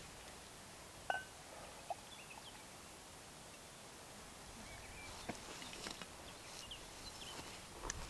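Quiet woodland ambience with faint, scattered bird chirps, a short ringing clink about a second in and a few light handling noises.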